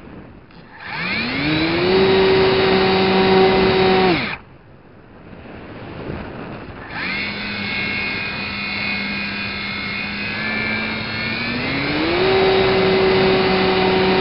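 Radio-controlled FPV plane's motor and propeller heard from its onboard camera: throttled up about a second in with a rising whine, cut off around four seconds, then throttled up again, its pitch climbing near the end before cutting off. Wind rushes over the microphone in the gap.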